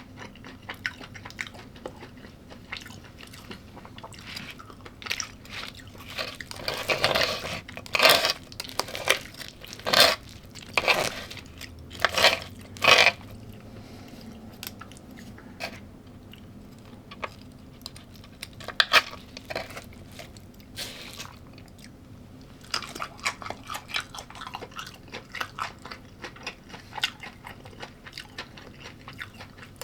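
Close-miked chewing and biting of crunchy food, a mixed plate of raw vegetables, nuts and meat. A run of loud crunches falls in the middle, a few more come later, and then quicker, softer chewing.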